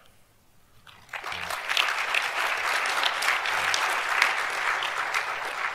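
Audience applauding, a crowd of hands clapping that begins about a second in and starts to die away near the end.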